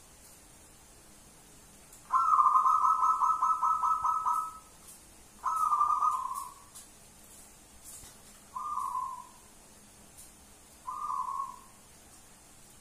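Zebra dove cooing: about two seconds in, a long phrase of rapid staccato coos, then three shorter coos spaced roughly three seconds apart.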